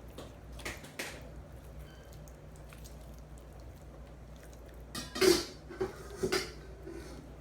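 Kitchen dishware and utensils being handled: a couple of light knocks early, then a louder clatter of a dish and utensils knocking together a little past the middle.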